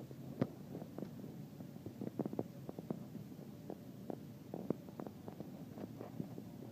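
Irregular soft clicks and knocks, a dozen or more scattered through, the loudest about half a second in: handling noise of fingers shifting on a phone held close to its microphone.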